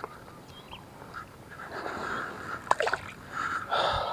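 Water splashing and sloshing at the edge of a pond, with a sharp splash about two-thirds of the way in and more sloshing near the end: a peacock bass being released back into the water.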